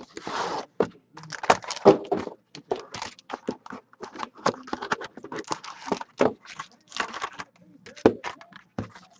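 A cardboard trading-card box being opened and handled, with its foil-wrapped packs taken out: irregular clicks, scrapes and rustles of cardboard and foil.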